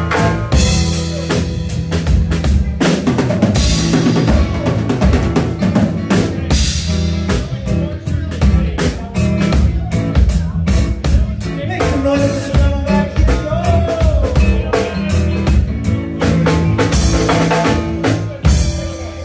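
Live band playing an instrumental passage: a drum kit with bass drum and snare, an electric bass and a guitar, with no singing. The playing drops off just before the end.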